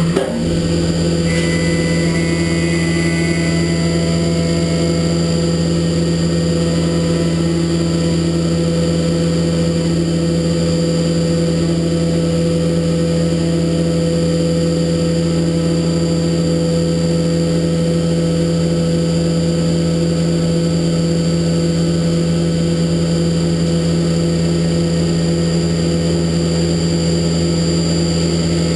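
Haas Super Mini Mill 2 CNC vertical mill running its spindle at a steady speed while cutting a part held in the vise: a loud, unchanging machine whine made of several steady tones.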